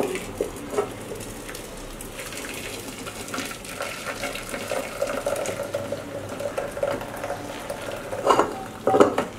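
Hot cooking water from boiled Kerala matta rice pouring out of a clay pot, past a plate held over its mouth, into a metal pot below: a steady trickling splash. Two short, louder sounds come near the end.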